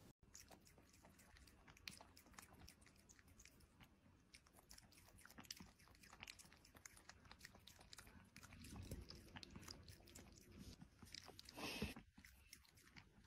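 Faint clicks and crunches of a cat biting and chewing on the tip of a plastic oral syringe, with one brief louder noise near the end.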